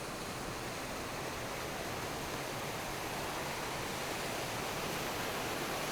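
Small waterfall with water rushing and splashing in a steady, even roar, growing a little louder near the end.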